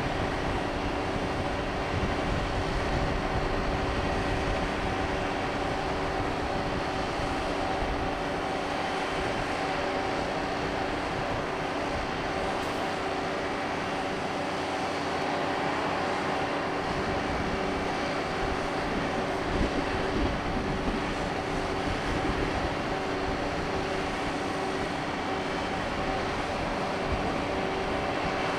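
Steady mechanical hum of a large cruise ship's machinery: a few held droning tones over a continuous rush of air and engine noise.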